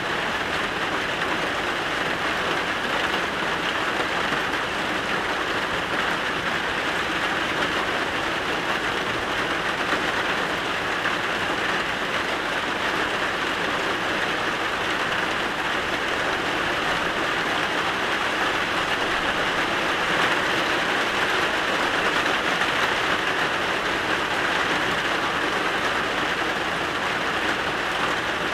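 Steady rain falling, an even hiss that neither builds nor eases.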